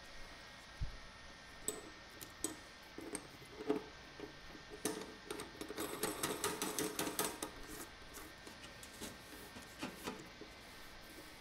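Clicks, taps and light clatter of a metal basket strainer and its rubber gasket being handled and pushed into the drain hole of a stainless steel sink, with a dense run of rapid clatter in the middle.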